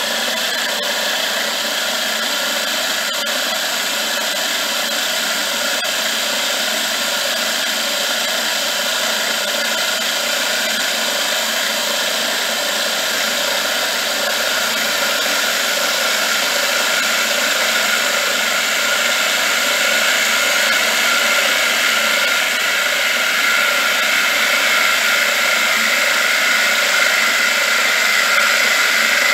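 Milling machine running, its end mill cutting metal as the workpiece is fed round on a rotary table: a steady mechanical whine of several tones over a constant hiss, growing slightly louder toward the end.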